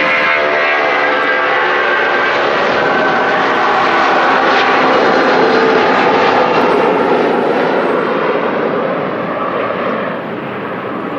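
Airplane engine roar passing overhead: a loud, deep rushing noise that swells to a peak midway and fades near the end.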